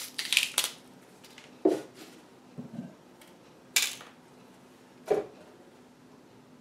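Celery stalks snapped by hand and the pieces dropped into plastic blender jars: about five short, sharp cracks and knocks, roughly a second apart.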